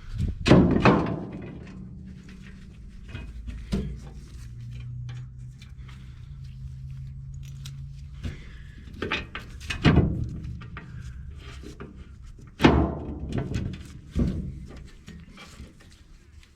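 A series of heavy thunks and knocks, about six spread unevenly, over a low steady hum.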